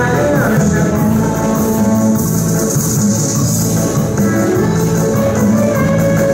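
Loud live band dance music with a steady beat and held melody notes, played through a sound system.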